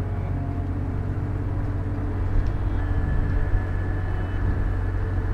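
A steady low droning hum with many overtones, not speech. A higher steady tone joins about three seconds in.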